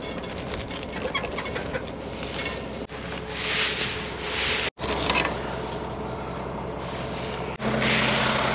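Tractor-drawn Kuhn wheel rake working through heavy hay: a rustling hiss of tines sweeping the hay, over a steady tractor engine hum that becomes louder near the end.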